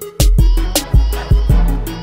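Background music with a heavy bass kick and crisp hi-hat beat, in a hip-hop style.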